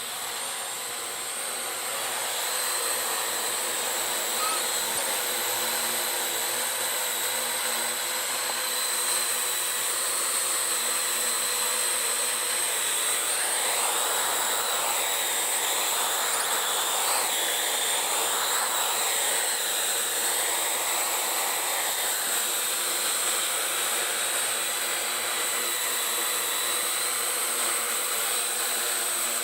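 Parrot AR.Drone 2.0 quadcopter flying, its four electric rotors giving a steady high-pitched whir that swells over the first couple of seconds. Around the middle, the sound wavers up and down several times.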